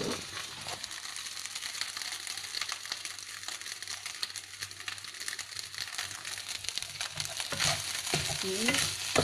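Fried rice with egg and mustard greens sizzling in a hot wok, with frequent small crackles and the scrape of a wooden spatula as it is stirred and turned.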